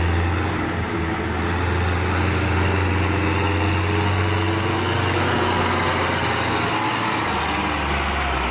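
Diesel tractor engine running hard, pulling a heavily loaded trolley with its front wheels lifted off the ground. A steady, loud low drone whose pitch shifts around seven seconds in.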